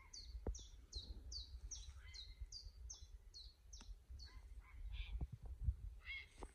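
A small bird singing a quick run of short, high, falling notes, about three a second, for about four seconds, then a few different chirps near the end, over a faint low rumble.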